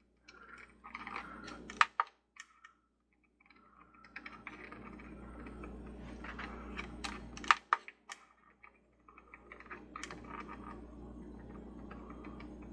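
A series of small, sharp clicks with handling noise as a light's brightness control is adjusted, over a steady low hum.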